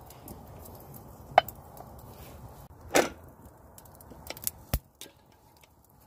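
A few scattered sharp knocks and pops over a faint steady low background: the loudest, a short ringing clink, about a second and a half in, a slightly longer crack about three seconds in, and a few quicker clicks near the end.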